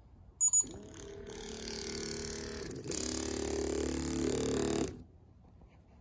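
Two quick electronic beeps from the ESP-32 RFID smart lock as a card is presented to its reader, then a steady mechanical whirring for about four seconds that shifts in pitch about halfway through, the lock mechanism moving.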